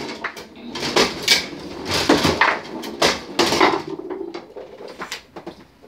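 Foosball game in play: rapid, irregular sharp knocks and clacks of the ball and plastic players striking each other and the wooden table, thinning out over the last couple of seconds.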